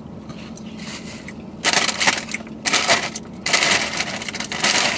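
Foil bag of Takis Fuego chips crinkling and crackling loudly in three bursts as a hand digs into it for chips, starting a bit over a second and a half in.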